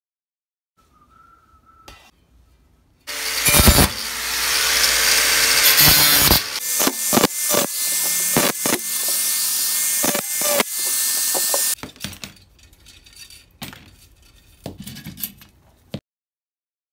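Angle grinder with a cut-off disc cutting through the steel spokes of a bicycle wheel: a loud grinding hiss over the motor's whine, broken by sharp clicks. It starts suddenly about three seconds in and stops about twelve seconds in, leaving a few faint clinks and knocks.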